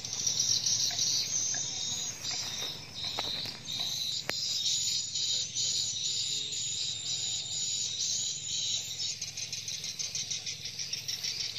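Chorus of insects buzzing steadily at a high pitch, turning into a fast, even pulsing trill about nine seconds in, with a couple of faint clicks a few seconds in.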